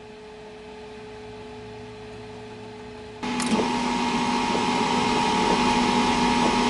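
A MIG welder's wire-feed motor running as the wire is jogged through the drive rolls: a steady whine over a hiss that starts suddenly about three seconds in, after a faint steady hum from the machine.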